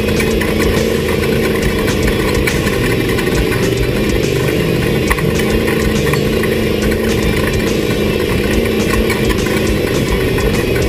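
Off-road race vehicle's engine running at a steady pitch, with frequent short rattles and knocks throughout.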